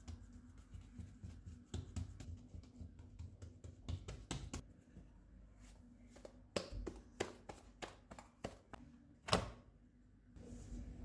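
Soft pats and taps of hands pressing and spreading pizza dough on a wooden board, then handling it into a metal pizza pan, with one louder thump about nine seconds in.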